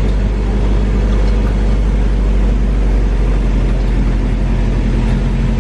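Vehicle engine running under a heavy low rumble of road and wind noise; its pitch steps up a little near the end.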